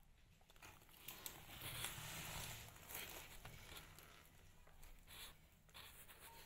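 Faint rustling and scratchy noise with scattered soft clicks, a little louder between about one and a half and three seconds in.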